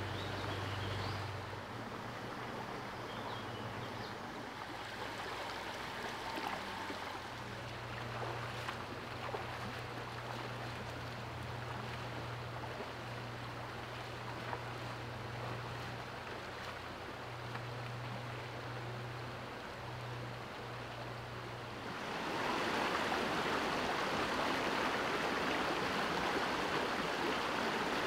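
Shallow stream water rippling over rocks, with a steady low hum underneath. About three-quarters of the way in, the sound cuts to a louder, brighter rush of water pouring over a small rocky cascade.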